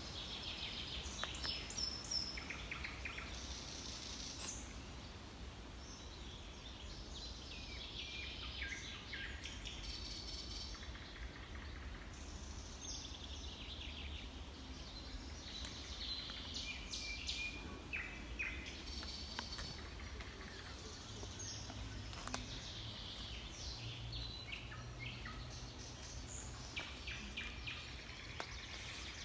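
Wild songbirds singing and calling, many short chirps and trills scattered throughout, over a low steady rumble.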